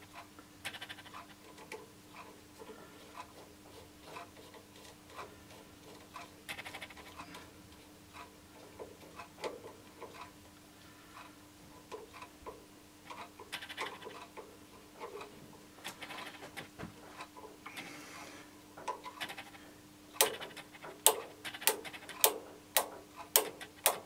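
Quiet hand work on a handlebar dip switch: scattered small taps and clicks of metal parts, then near the end a run of about eight sharp metal clicks, roughly two a second, as a screwdriver is worked at the switch's clamp screw. A faint steady hum sits underneath.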